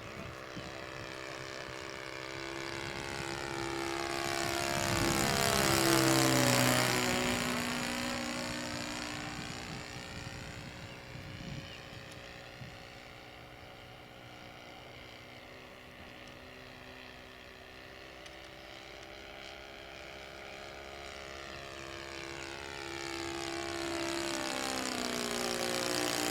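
Saito 62 four-stroke glow engine with a 12x6 propeller on a Seagull Models Spacewalker model plane in flight, making passes. It grows to its loudest about six seconds in, its pitch dropping as it goes by, fades away, then comes back loud near the end with its pitch falling again.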